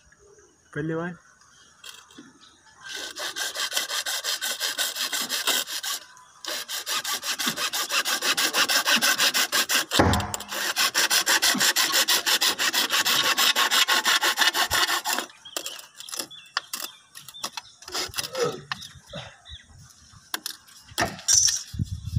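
Hacksaw blade cutting through a white plastic water pipe in quick back-and-forth strokes, with a short break a few seconds in. The sawing stops about two-thirds of the way through, and lighter handling knocks of the pipe follow.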